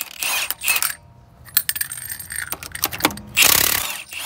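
Cordless impact wrench whirring in two short bursts as it spins 23 mm lug nuts off a wheel, its motor pitch rising and falling each time. Light metallic clinks of the loosened nuts come in between.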